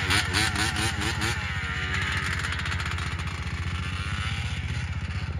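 Yamaha Blaster's two-stroke single-cylinder engine running, its pitch wavering up and down with throttle blips in the first second and a half, then holding fairly steady before cutting off suddenly at the end.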